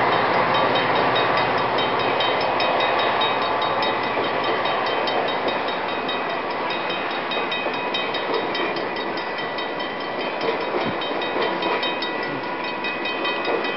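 Passenger train's stainless-steel coaches rolling past a level crossing, the wheels clattering on the rails in a steady, dense rumble that eases slightly as the train goes by, with a fast, regular high ticking throughout.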